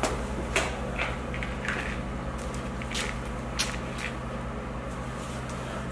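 Plywood sheets of a lifting platform being shifted and squared up by hand on a concrete floor: a few light, irregular knocks and scrapes of wood, over a steady low hum.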